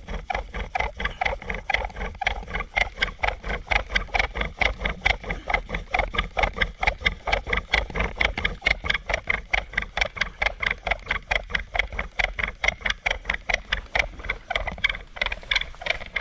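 Bow drill in use: a wooden spindle spun against a wooden hearth board by rapid, regular back-and-forth bow strokes, squeaking and grinding on each stroke as friction builds heat for an ember.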